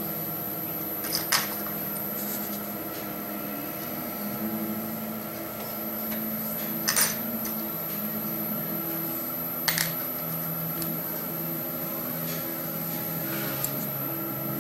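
Small metal clicks and taps from hand-fitting a screw and a tiny titanium spacer into a knife handle with a screwdriver: a handful of sharp clicks a few seconds apart over a steady background hum.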